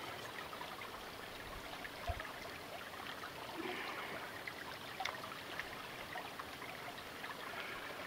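Shallow creek trickling over rocks, a steady, quiet rush of water, with a few faint knocks as wood is pushed into the campfire.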